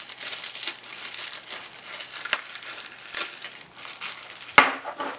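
Plastic mailer bag crinkling and crackling as it is unwrapped and pulled open by hand, with one sharp, loud crackle near the end.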